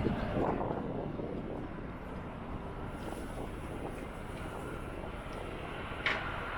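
Steady low rumble of distant jet aircraft engines, with a short sharp knock about six seconds in.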